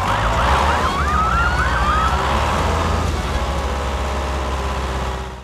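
Emergency-vehicle siren in a fast yelp, its pitch swinging up and down about four times a second, then changing to one slower wail. It fades out at the end, over a steady low hum.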